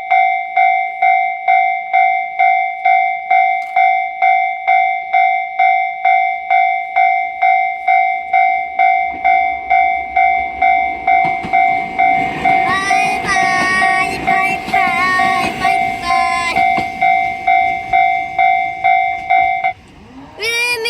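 Japanese railway level-crossing warning bell ringing its steady "kan-kan" ding about twice a second while a train rumbles through the crossing from about halfway in; the bell stops shortly before the end, as the crossing clears.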